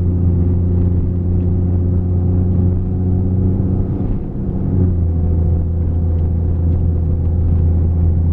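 Jeep engine running while driving, heard from inside the cab as a steady low drone. It dips briefly about four seconds in, then settles back to a slightly different pitch.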